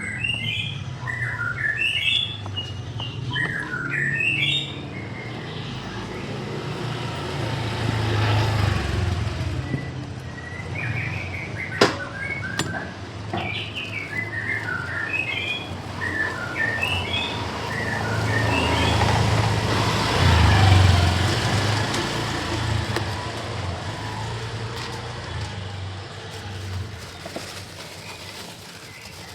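Small birds chirping in quick bursts, with the low rumble of passing traffic swelling twice, and a single sharp click about twelve seconds in.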